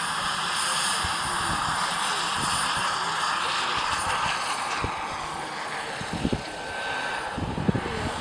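Radio-controlled scale model helicopter in flight, its drive and rotor giving a steady high whine whose tones drift slowly in pitch as it passes and climbs away. Two brief low thumps come about six and seven and a half seconds in.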